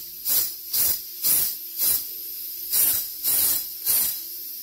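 Afghan kazan pressure cooker's valve letting off steam in short hissing puffs, about two a second. The cooker is still under pressure with the heat turned off.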